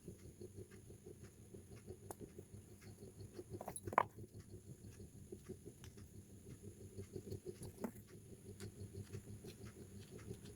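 Faint, irregular clicks and light taps over a low steady hum, with one sharper click about four seconds in.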